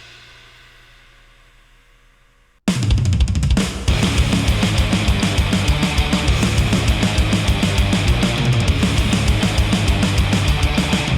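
Recorded music played back through headphones and picked up by measurement microphones: the end of one track fades away almost to silence, then about two and a half seconds in a new rock track comes in at full level with drum kit, cymbals and guitar and a steady beat.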